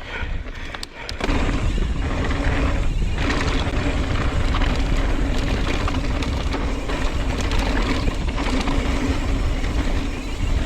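Mountain bike riding fast downhill on a dirt trail: steady rush of wind over the camera microphone mixed with tyre and drivetrain noise, with a low hum, rising sharply about a second in as speed picks up.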